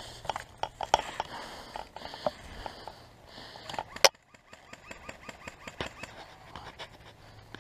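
A single sharp shot from an HFC USR-11 CO2 airsoft sniper rifle about four seconds in, amid scattered light clicks and taps.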